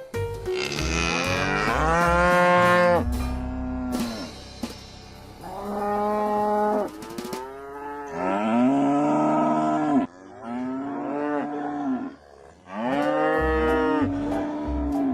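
Cattle mooing: about five long calls in a row, each lasting one to three seconds and swelling up then sinking in pitch.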